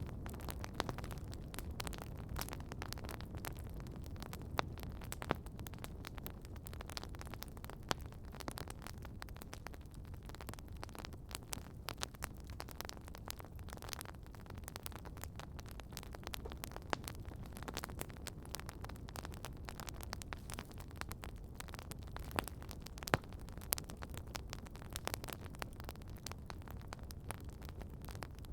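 Campfire crackling: frequent sharp pops and snaps scattered irregularly over a low steady rumble, with one louder pop a little past two-thirds of the way through.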